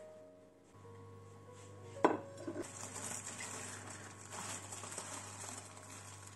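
A glass plate clacks sharply down onto a countertop about two seconds in, with a few lighter knocks after it, then rustling and handling noise as a slice of bread is laid on the plate.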